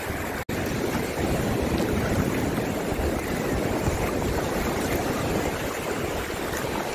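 Sea surf washing in over the shallows, a steady rush of water that cuts out for an instant about half a second in.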